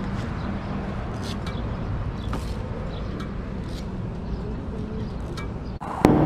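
1985 Honda CB700SC Nighthawk's inline-four engine running on the road, mixed with a steady low rumble of wind on the microphone. About six seconds in, the sound cuts abruptly to a louder, clearer engine note.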